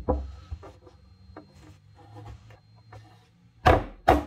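Pine boards being handled against each other, with a knock and faint scraping and rubbing of wood on wood. Near the end come three short, loud, rushing bursts.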